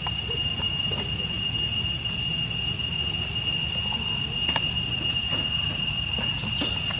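Steady high-pitched insect drone, an unbroken whine that holds one pitch, over a low rumble, with a few faint ticks.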